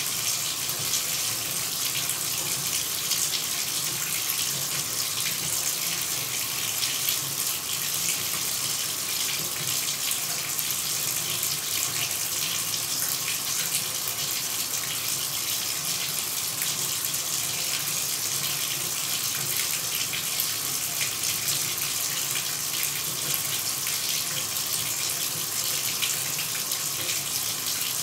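Shower running: a steady, unbroken spray of falling water, an even hiss brightest in the high range.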